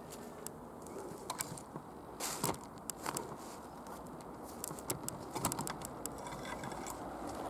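Irregular crunches and clicks of footsteps and rustling over rough ground, with a steady low background haze.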